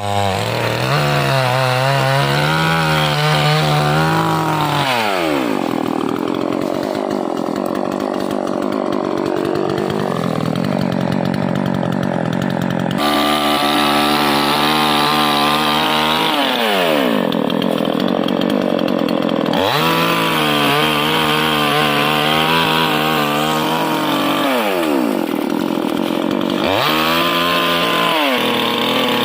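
Two-stroke chainsaw switching back and forth between idle and full throttle, its engine note sweeping up and down several times and holding at high revs for stretches while it cuts hard keleban wood.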